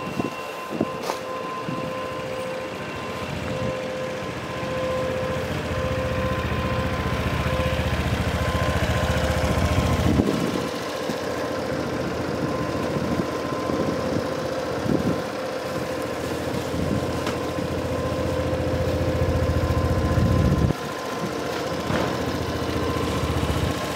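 Honda Vision 110 scooter's small single-cylinder four-stroke engine idling steadily. A lower rumble swells twice, dropping away about ten seconds in and cutting off suddenly near the end.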